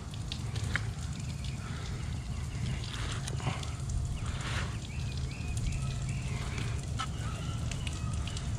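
Birds chirping in short repeated notes over a steady low hum, with small clicks and scrapes of a fillet knife cutting along a mutton snapper's backbone.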